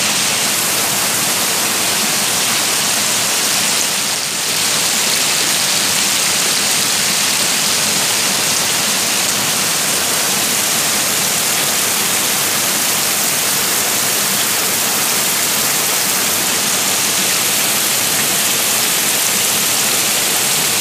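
Heavy rain and a torrent of muddy runoff water rushing down a narrow earthen channel, a loud, steady rushing noise.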